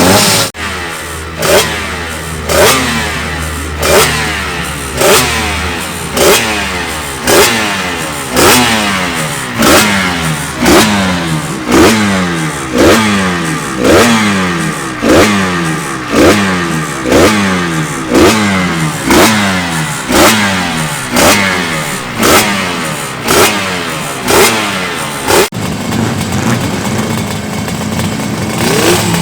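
Two-stroke racing motorcycle engine revved in sharp blips, about one a second, each climbing quickly and dropping back. Near the end it changes to steadier, lower running.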